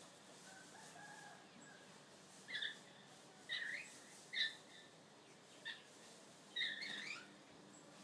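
Common myna giving a series of short, harsh calls, five in all from about two and a half seconds in, the last a longer rasping burst.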